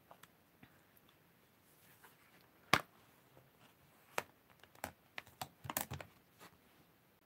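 Hard plastic stamp-set case being opened and handled: one sharp click about three seconds in, then a quick run of clicks and taps near the end.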